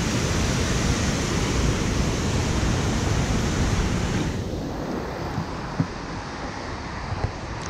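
Steady rushing of river water, its hiss turning duller about four seconds in.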